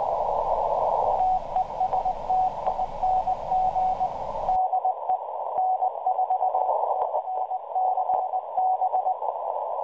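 Morse code (CW) on the 40-metre band heard through a shortwave receiver: a single tone keyed in dots and dashes inside a narrow band of receiver hiss, from a 1-watt transmitter about 250 miles away. The signal is weak but still stands clear above the noise floor. The wider background hiss drops away about halfway through.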